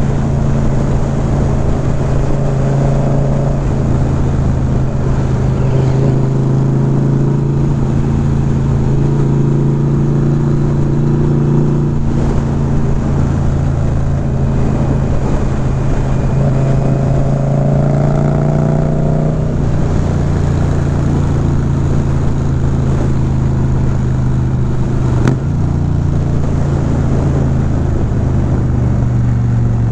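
Indian motorcycle's V-twin engine running at road speed under a rush of wind, its note rising and falling a little through the bends. Near the end there is a sharp click and the engine note drops.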